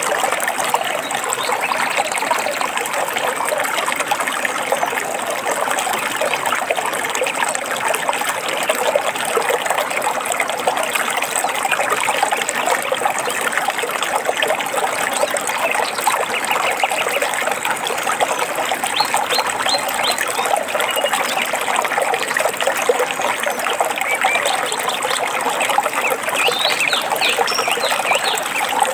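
A small stream trickling and burbling steadily, with birds chirping now and then, more often about twenty seconds in and near the end.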